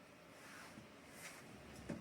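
Near silence: faint room noise with a few soft rustles and one short click near the end.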